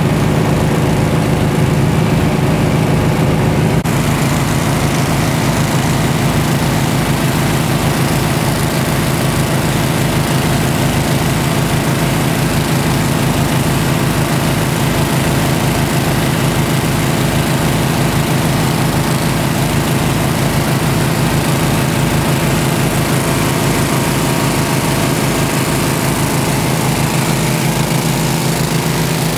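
Engine of a floating gold dredge running steadily at constant speed, with a fast even low throb. A steady hiss joins it about four seconds in.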